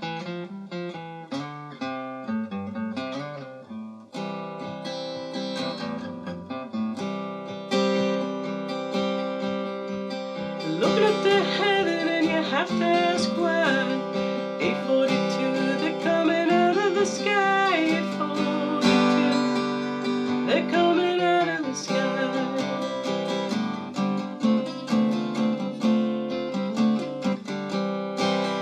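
Acoustic guitar playing a picked song introduction. About eleven seconds in, a louder melody line with notes that slide between pitches comes in over the guitar.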